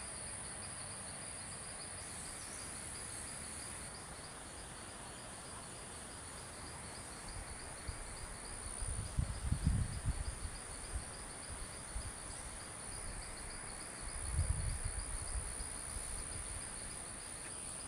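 Insect chorus trilling steadily in a high, continuous drone over a pulsing lower chirp. Low rumbles swell up twice, once about halfway through and again near the end.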